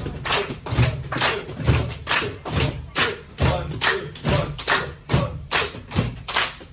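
A team of players clapping their bare hands in unison, a steady beat of about two claps a second, with a heavy thud on every other beat.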